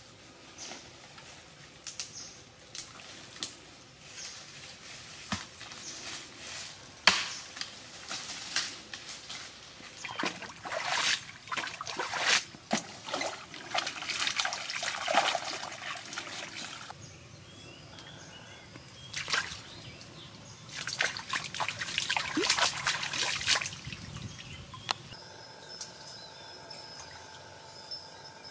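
Shallow muddy water splashing and sloshing in irregular bursts as hands and a bamboo tube work in it. Near the end the splashing stops and a few steady high tones remain.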